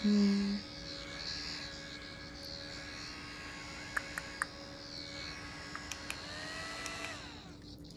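Nimya battery-powered handheld mini fan running with a steady electric hum and whir, its pitch falling as it winds down near the end. There is a brief, louder steady tone right at the start.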